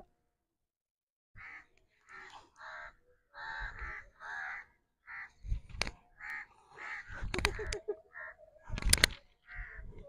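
A crow cawing again and again, short harsh calls coming about every half second, starting a little over a second in after a moment of dead silence. A few sharp clicks come in the second half.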